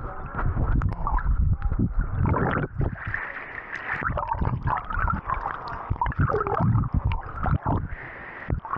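Water sloshing, gurgling and splashing right at the microphone as the camera is dunked in and out of a swimming hole, with muffled underwater rumbling in irregular surges.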